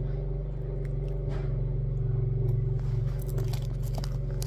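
A person biting and crunching crunchy food close to the microphone, in short crackles, over a steady low hum.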